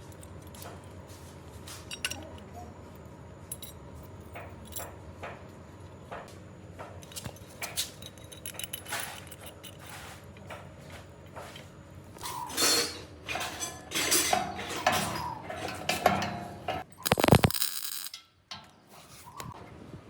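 Metal parts and tools clinking and knocking as they are handled, in scattered irregular taps that grow busier in the second half. A brief loud burst of noise comes near the end.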